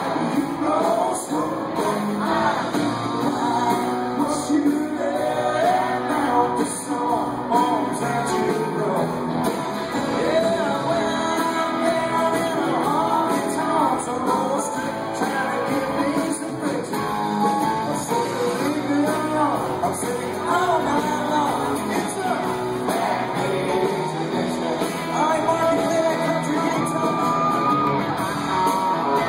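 Live country-rock band playing a song with a male lead vocalist singing over electric guitars, bass and drums, in a large hall.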